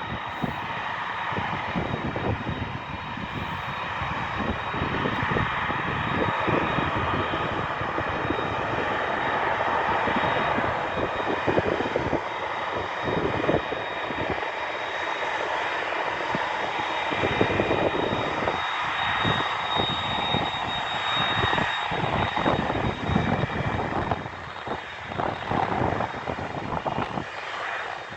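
Airbus A300-600R's General Electric CF6-80C2 turbofans at idle as the airliner taxis: a steady jet roar with a thin high whine held on one pitch, growing a little quieter near the end.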